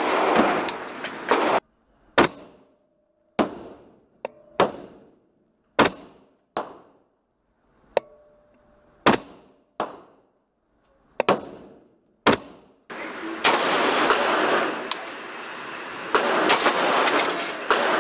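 Semi-automatic 7.62x39 AR-15 rifle firing single shots at a steady pace, roughly one a second, each sharp crack followed by a short echo off the walls of an indoor range. At the start and again from about two-thirds in, the shots sit in a dense, loud rushing noise.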